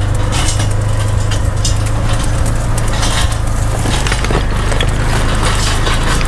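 Side-by-side utility vehicle driving at a steady engine note, with its tyres crunching and crackling over loose rocks.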